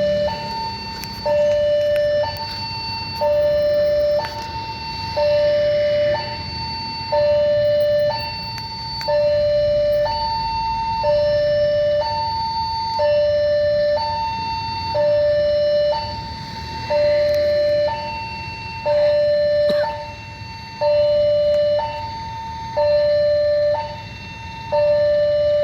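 Railway level crossing warning siren sounding a two-tone hi-lo alarm, a higher and a lower tone alternating about once a second each, the signal that a train is approaching the crossing.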